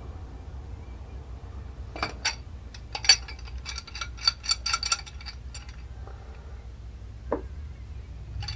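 Metal hand tools clinking and tapping against pipe fittings as they are set on a tight copper pipe union: two knocks about two seconds in, a quick run of light clinks, and a single knock near the end.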